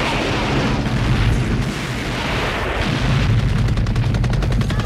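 War-film battle sound effects: a loud, continuous rumble of explosions and gunfire. From about three seconds in, a rapid, even rattle runs over it.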